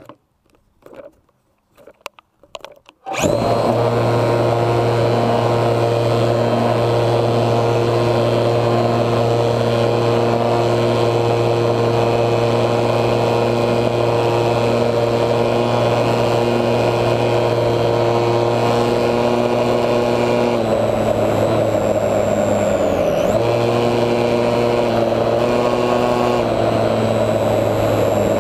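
Electric motor and propeller of a HobbyZone Super Cub RC plane, picked up by a camera on the plane itself. A few faint handling knocks come first. About three seconds in the motor starts suddenly and runs steadily under power. In the last third its pitch shifts a few times, with one quick dip and recovery, as the throttle changes.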